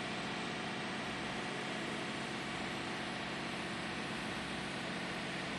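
Steady background noise: an even hiss with a faint hum, unchanging in level.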